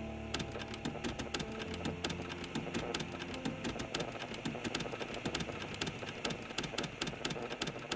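Rapid, irregular clicks, several a second, over a low steady drone.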